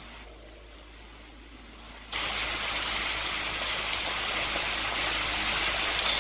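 Steady hiss of rushing, falling water, cutting in abruptly about two seconds in over a faint background hiss.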